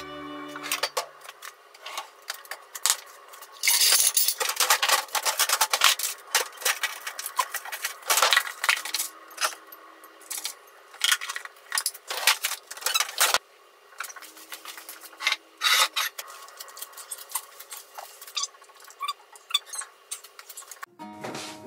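Food-plating handling sounds: a ceramic plate, chopsticks and a plastic container clicking, tapping and rubbing as grilled eggplant is dished up and topped with chopped green onion. The clicks and scrapes come irregularly, in louder clusters.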